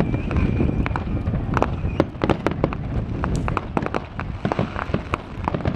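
Fireworks display: many sharp crackles and pops at irregular intervals over a low rumble, with a thin steady whistle during the first two seconds.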